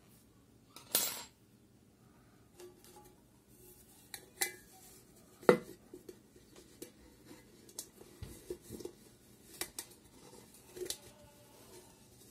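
Crocheting by hand: scattered light clicks and clinks as the work is handled, with a brief rustle about a second in and a sharper knock about five and a half seconds in, the loudest.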